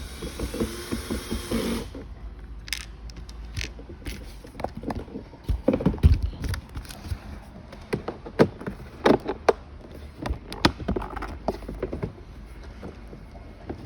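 A power screwdriver whirs for about two seconds, then scattered clicks and knocks of hard plastic parts and screws being handled and fitted.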